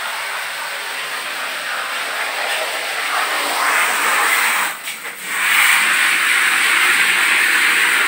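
Water spraying hard onto the shower floor as air-conditioner parts are washed: a steady hiss that breaks off briefly about five seconds in and comes back louder.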